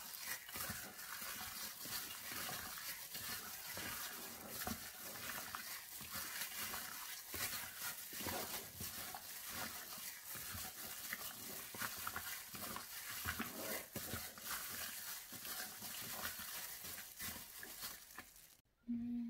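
A plastic-gloved hand mixing raw chicken wings in a ketchup marinade in a bowl: a continuous run of squishing and plastic rustling that cuts off near the end.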